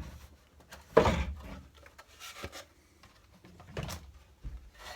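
MDF inlay pieces being handled: a sharp knock about a second in, then a couple of lighter knocks with some rubbing between.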